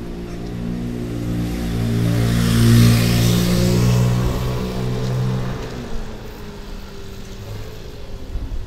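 A motor vehicle passing close by: a steady engine hum grows to its loudest about three seconds in, then fades and drops away at about six seconds.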